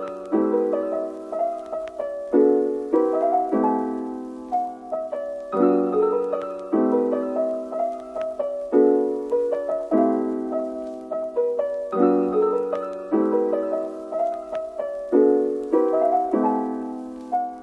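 Background piano music, chords struck one after another at an easy, steady pace.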